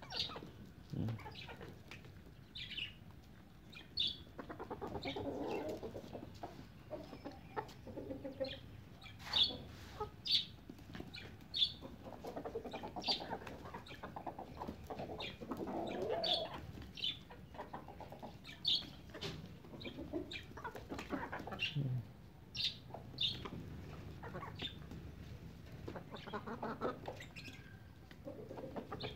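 Chickens clucking softly while feeding, with frequent short, sharp taps of beaks pecking food off a concrete floor.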